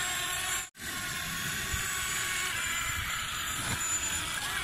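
Toy RC excavator's small electric motors whirring steadily as its plastic tracks drive it across sand. The sound cuts out for a moment less than a second in, then carries on.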